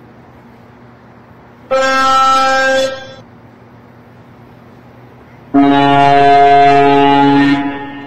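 Truck air horn sounding twice over a steady low hum of traffic: a blast of about a second, then a longer, lower-pitched blast of about two seconds.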